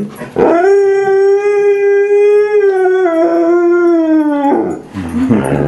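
Siberian husky howling: one long, steady howl of about four seconds that steps down slightly in pitch partway and falls off at the end, followed near the end by a shorter, rougher call.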